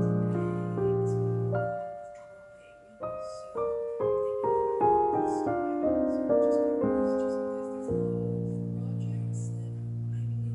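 Background piano music: gentle chords, fading briefly about two seconds in, then a run of single notes and held chords.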